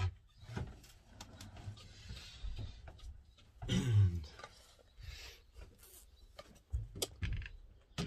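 Faint handling noises in a small cabin: light rubbing and scattered knocks. There is a short, falling grunt about four seconds in and a sharper click near the end.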